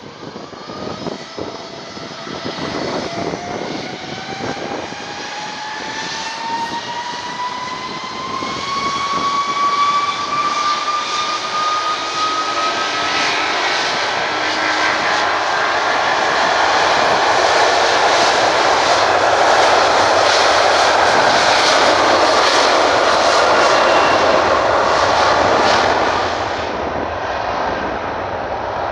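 Airbus Beluga XL's twin Rolls-Royce Trent 700 turbofans spooling up to take-off thrust. A rising whine builds over the first ten seconds or so into a loud, steady jet roar, which eases a little a few seconds before the end.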